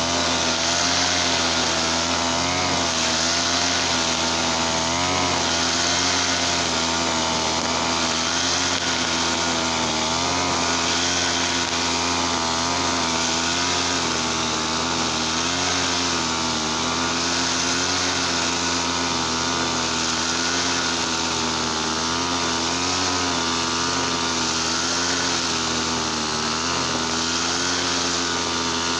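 Easyman TL33 brush cutter's small two-stroke engine running steadily at high speed, its pitch wavering slightly up and down.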